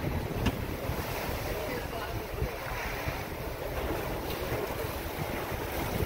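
Swimming-pool water sloshing and splashing as a rocking ship throws it from side to side, with wind buffeting the microphone. A steady, even wash of noise with no single splash standing out.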